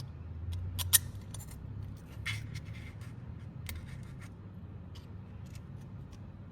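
Small plastic parts clicking and scraping under the hands as conical TPU wheels are pushed onto axles, with one sharper click about a second in.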